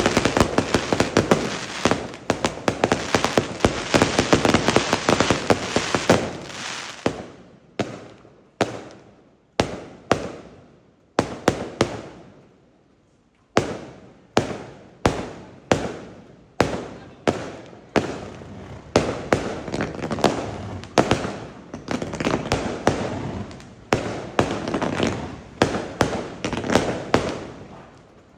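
Fireworks going off: a dense rapid crackle of bangs at first, then single bangs with echoing tails about one to two a second, a short lull about twelve seconds in, then further rounds of bangs.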